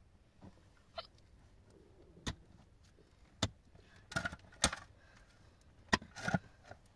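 A handful of sharp knocks and clinks of hard objects, irregularly spaced, the loudest two in the second half.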